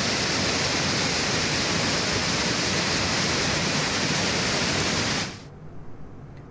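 Floodwater rushing through the open spillway gates of the Jurala dam on the Krishna river: a steady, loud rushing that cuts off abruptly about five seconds in.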